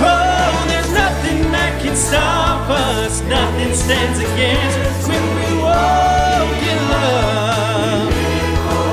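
A virtual church choir of men's and women's voices singing a worship song together, with held notes and vibrato, over a steady low bass accompaniment.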